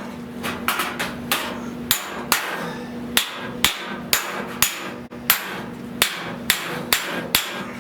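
Body hammer striking a 1970 Buick Wildcat's steel fender over a dolly, sharp metallic blows at about two a second, uneven in strength, to flatten a low, dented area of the panel.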